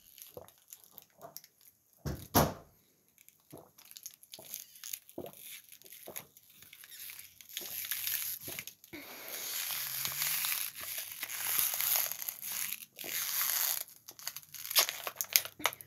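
Thin plastic water bottle crinkling and crackling as it collapses while being sucked empty. There is a sharp crackle about two seconds in, then denser crinkling from about halfway to near the end.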